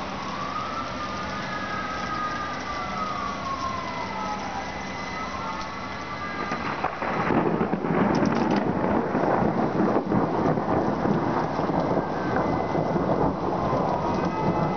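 Steady rain with a wailing emergency-vehicle siren. About seven seconds in, a loud rumble of thunder breaks out suddenly, with a few sharp cracks at its start, and rolls on. The siren wails again near the end.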